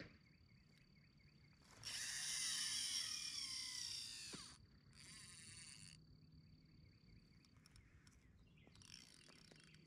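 AVET MXL conventional reel's spool whirring as line pays out on a cast, the whine falling in pitch as the spool slows, lasting about two and a half seconds from about two seconds in. Shorter bursts of reel noise follow around five seconds and again near the end.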